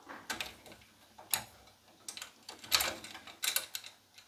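Irregular small clicks and scrapes of a 3D printer's spool holder bracket and its bolts being slid along the frame channel and tightened by hand.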